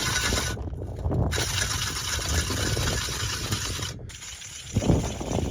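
Ice auger driven by a cordless drill boring into thick lake ice: a steady grinding hiss of the cutting that drops out abruptly twice, under a low rumble of wind on the microphone.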